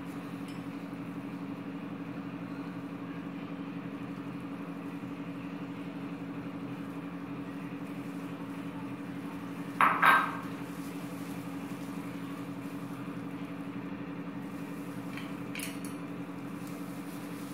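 A steady low hum throughout, with one short, loud clatter of crockery about ten seconds in as bowls and a spoon knock together while potato is mixed.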